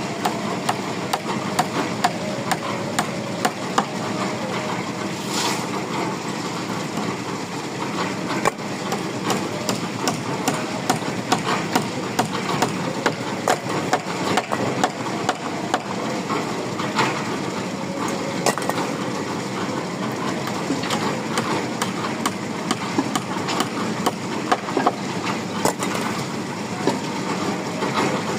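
Micro-pile rig at work: an engine running steadily, with frequent, irregular sharp knocks and clanks throughout.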